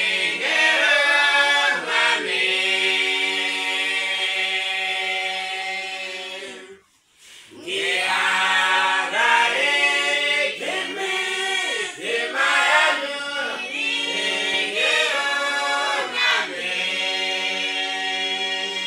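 Small mixed group of male and female voices singing a hymn a cappella in harmony, with long held notes. The singing breaks off briefly about seven seconds in, then resumes.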